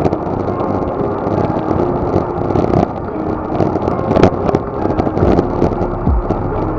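Steady wind rush and road noise on an action camera riding along in a road bike race, a dense low rumble without speech. Near the end a low, thumping music beat comes in.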